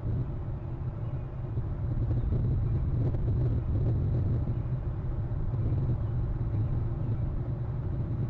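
Steady low outdoor rumble from a webcam microphone, with no bird calls or other distinct events.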